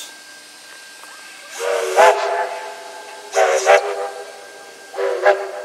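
Steam locomotive whistles on a triple-headed train of Victorian Railways K- and Y-class engines, sounding three blasts, each a second or less and made of several tones. The first comes about one and a half seconds in, the last near the end. A steady hiss of escaping steam runs underneath.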